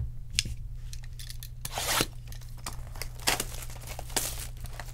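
Plastic shrink-wrap being torn off a sealed hobby box of baseball cards, in several short ripping and crinkling bursts, the longest about two seconds in.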